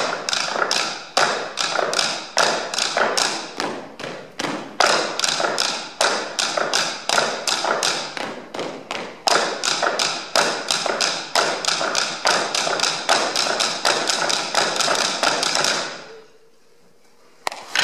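Four percussionists striking tabletops with drumsticks, a fast, dense rhythm of sharp clicking taps. The playing stops about 16 seconds in, and after a short pause one sharp strike comes near the end.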